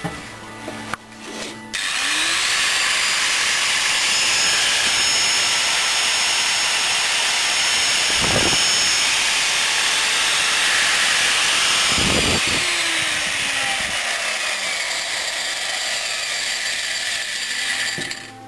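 A Craft-tec PXAG227 180 mm electric angle grinder is switched on about two seconds in. It spins up and runs at high speed with a loud, steady whining hiss, with two brief deeper surges about a third and two thirds of the way through. It shuts off near the end.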